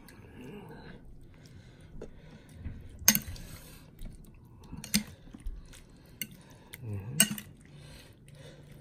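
A metal fork clinking and scraping against a ceramic bowl as it stirs through a salad, with three sharper clinks spaced about two seconds apart.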